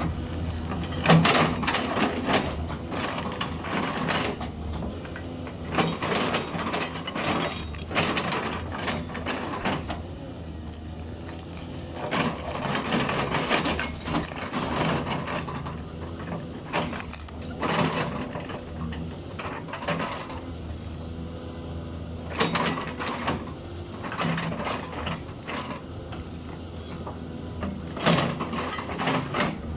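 Caterpillar 320D L tracked excavator's diesel engine running under load, with repeated sharp cracks and knocks as its bucket digs into and tears out tree roots and stumps.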